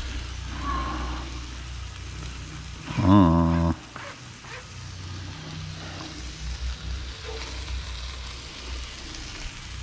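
Beef and chicken strips frying in a large pan, a steady sizzle, with a brief low voiced sound about three seconds in.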